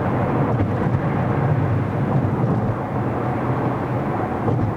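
Steady low rumble of a car driving, road and engine noise with no sudden events.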